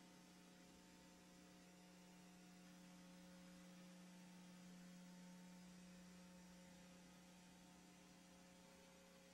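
Near silence: a faint, steady hum over light hiss, with no sound of the fight itself.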